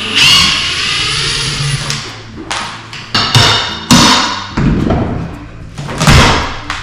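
Demolition of old floor underlayment: a drawn-out creaking scrape for about two seconds, then a run of heavy knocks and thumps.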